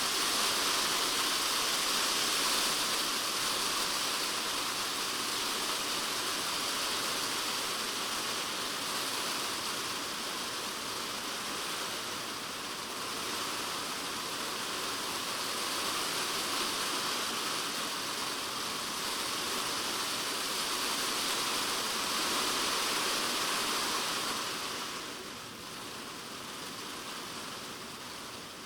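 Typhoon rain falling steadily on a polycarbonate shed roof, heard from inside the shed. The rain eases a little near the end.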